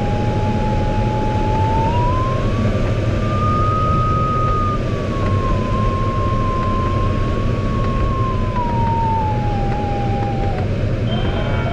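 Glider variometer giving one continuous electronic tone whose pitch follows the glider's vertical speed in a thermal. It rises about two seconds in, wavers, then slides down and cuts off near the end, over the steady rush of airflow in the cockpit.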